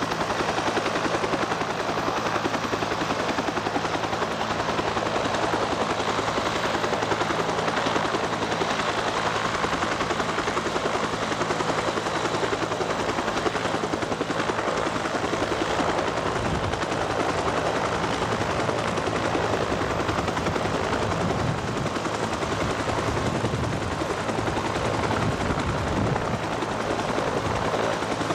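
UH-60 Black Hawk helicopters running close by, rotors turning with a steady, rapid blade chop over the turbine noise.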